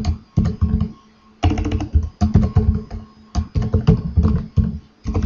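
Typing on a computer keyboard: quick runs of sharp key clicks with short pauses between them.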